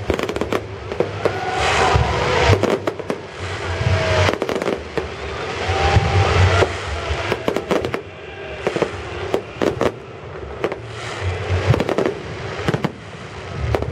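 Fireworks salute: many sharp bangs in quick succession over a continuous crackling hiss that swells and fades in waves.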